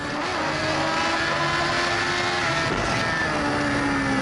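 Sports motorcycle engine running at road speed, heard from an on-board camera with wind rush over it; its note holds steady, then sags gradually in pitch over the last couple of seconds as the bike eases off.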